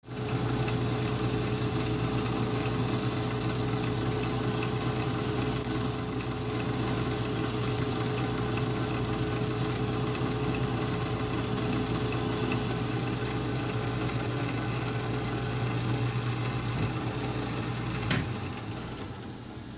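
South Bend 9-inch lathe running under power, a steel shaft spinning in the four-jaw chuck while the tool takes a light skim cut, with a steady mechanical hum. Near the end there is a click and the running sound fades.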